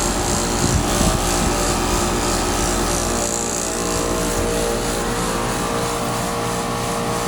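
Central air conditioner's outdoor condensing unit running with a steady, loud hum from its compressor and fan. The compressor runs but seems not to pump: the high and low side lines are the same temperature and the unit puts out no cooling.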